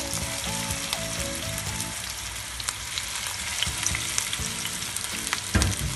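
Raw ground-beef burger patties frying in hot oil in a frying pan, a steady sizzle full of small crackles and pops. There is a sharp crackle at the start as a patty goes into the oil, and a dull knock about five and a half seconds in.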